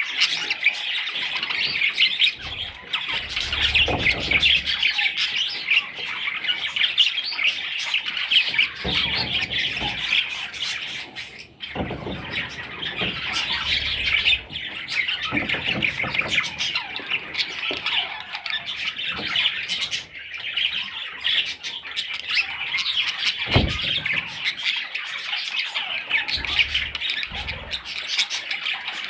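Budgerigar chicks calling together in a dense, continuous stream of high chirps, with a brief lull about eleven seconds in.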